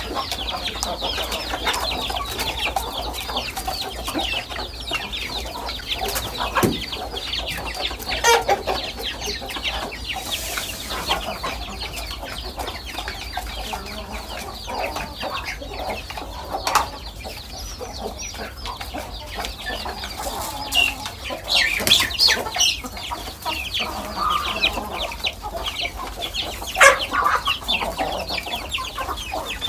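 Chickens clucking and chicks cheeping, a dense, continuous chatter of short high peeps, with a few louder sudden calls or knocks here and there.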